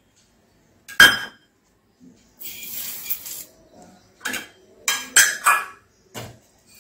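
Steel bowls clinking and clacking against a large steel mixing bowl as dry grains for idli batter are tipped into it. A sharp clack comes about a second in, a soft hiss of grains pouring into the water follows, then several quick clinks.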